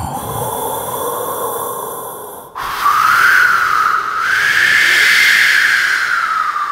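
Vocal mimicry of a slowly opening, creaking door: a breathy, wavering squeak, then about two and a half seconds in a louder, drawn-out whistling creak that slides slowly up and down in pitch before fading.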